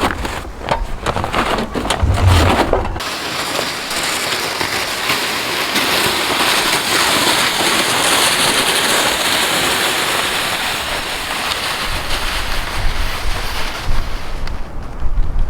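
Steady hiss of wind and blowing snow in a snowstorm, with crunching and low gusty rumbles of wind on the microphone in the first few seconds and again near the end.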